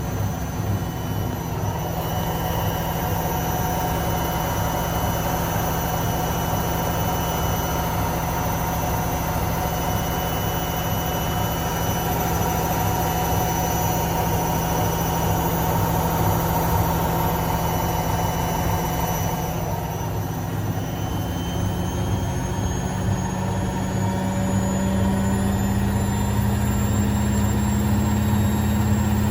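Logik L712WM20 washing machine running its wash, its drum motor giving a steady mechanical hum. About two-thirds of the way in the hum dips briefly, then the motor's tone rises steadily in pitch as the drum speeds up.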